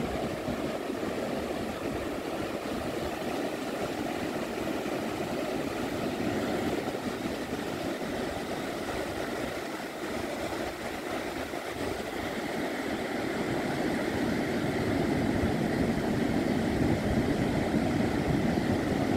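Ocean surf breaking on a sandy beach: a steady rush of waves that grows a little louder in the last few seconds.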